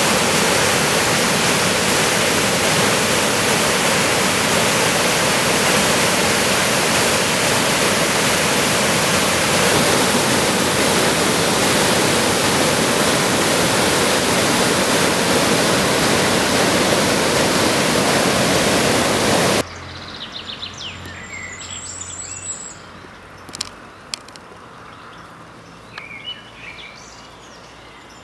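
Water rushing over a river weir, a loud steady noise. About twenty seconds in it cuts off suddenly, leaving birds chirping against a faint background.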